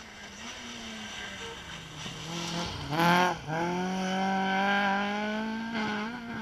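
Rally car engine passing at speed on an asphalt stage. It grows louder, the revs climb sharply to a peak about three seconds in, then after a brief dip it pulls up to a high, steady note before fading at the end.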